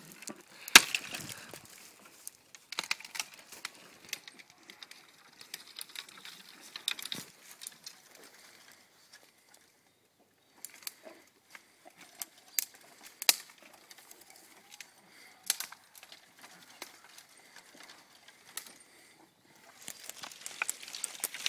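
Neapolitan Mastiff biting and crunching tree branches: irregular sharp cracks and snaps of splitting wood with rustling twigs, the loudest crack about a second in.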